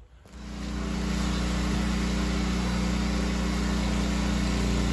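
A pressure washer's engine comes in about a third of a second in and then runs steadily at a constant speed.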